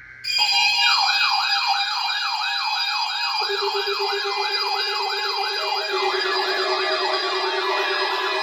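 Electronic siren yelping, a fast rising-and-falling sweep about four times a second that starts abruptly. About three seconds in a steady low tone joins it, and about six seconds in more siren layers are added on top.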